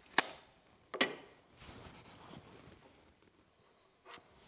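Two sharp hammer blows about a second apart, the first the louder, knocking a wooden crosspiece square between cherry bow rockers. Light handling noise follows, with a small click near the end.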